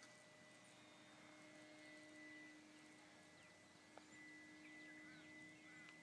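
Near silence outdoors: a faint steady hum, with a few faint high chirps and a single soft click about four seconds in.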